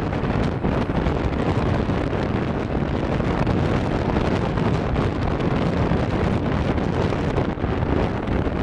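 Steady wind noise on the microphone of a camera strapped to a motorcycle rider's arm at riding speed, with the motorbike and road noise mixed in underneath.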